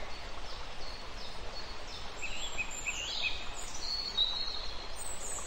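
Outdoor ambience: small birds chirping and singing over a steady background hiss, the chirps growing busier from about two seconds in.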